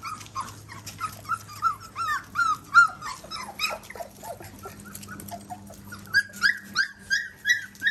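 A litter of golden retriever puppies whimpering and yelping, many short high cries overlapping several times a second, each rising then falling in pitch. The cries turn higher and more insistent near the end.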